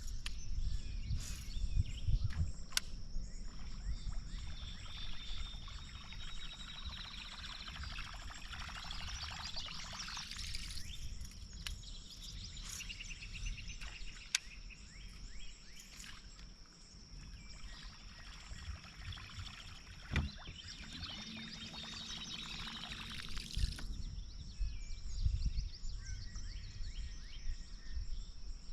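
Fishing lure churning across the water surface while the reel winds it in, in two spells, over a steady high-pitched insect drone. Low wind bumps on the microphone come and go.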